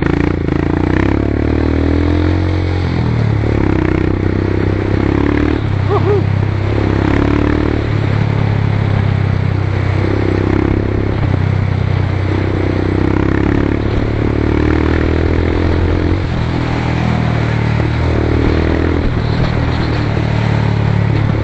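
Motorcycle engine running while riding, its note swelling and easing every few seconds with the throttle over a steady rushing noise.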